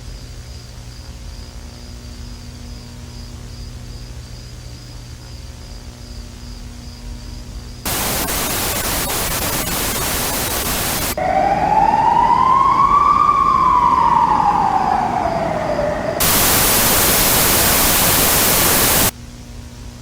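Video-tape hiss and low hum with a faint pulsing high tone. About eight seconds in, loud TV-style static bursts in for a few seconds, gives way to a siren-like tone that rises and falls once over about five seconds, then loud static returns and cuts off suddenly back to the low hiss.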